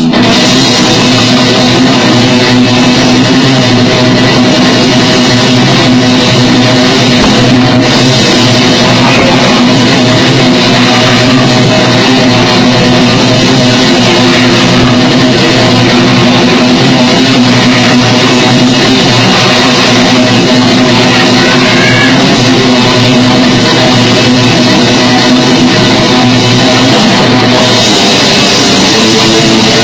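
Grindcore band playing: heavily distorted electric guitar and drum kit in a loud, dense, unbroken wall of sound.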